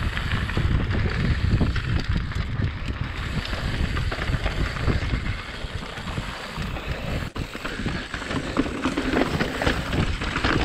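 A mountain bike rolling fast over rocky dirt trail, its tyres and frame rumbling and rattling, with wind buffeting the microphone. There is a brief break about seven seconds in.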